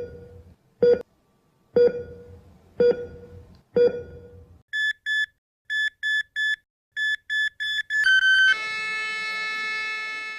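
Electronic beeping sound effect: five low pitched pulses about a second apart, then short high beeps coming faster and faster, ending in one long held tone that slowly fades.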